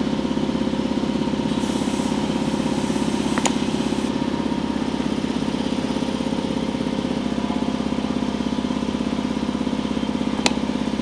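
A motor running with a steady drone and a fast, even pulse. Two sharp clicks sound over it, a few seconds in and again near the end.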